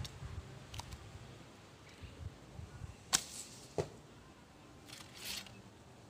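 Arrow shot from a traditional bow: a sharp snap of the string about three seconds in, a short whoosh, then a knock under a second later as the arrow strikes. A softer whoosh follows near the end, over light wind rumble.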